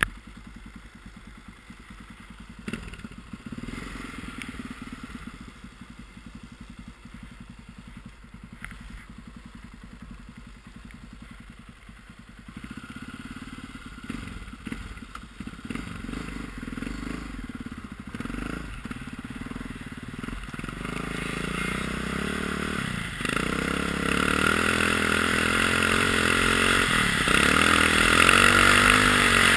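Honda XR650R's single-cylinder four-stroke engine idling with a steady low beat, then revving and pulling away about two-thirds of the way in. Its pitch climbs with a couple of dips as it accelerates, and wind noise on the helmet microphone grows louder.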